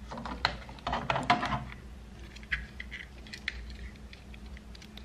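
Glass and metal decorations being handled on a mirrored metal tray and a wooden tabletop: a quick run of light clinks and taps in the first second and a half, then scattered single clicks.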